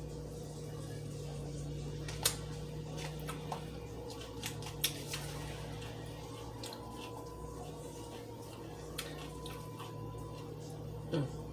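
Eating at the table: scattered sharp clicks and small crunches from utensils on a plate and chewing of fried fish and coleslaw, over a steady low hum.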